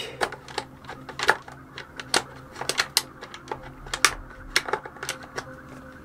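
LCT polymer AK magazine clicking and knocking against the magazine well of an E&L AK-12 airsoft AEG in an irregular run of taps as it is rocked and pushed in, but it fails to latch: this magazine does not fit the replica.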